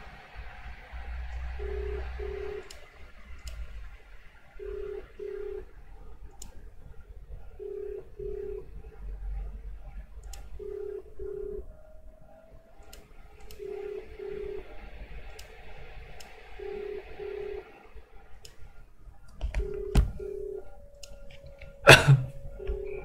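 Australian telephone ringback tone: a double ring, two short low beeps every three seconds, as an outgoing call rings without being answered. A loud sharp click comes near the end.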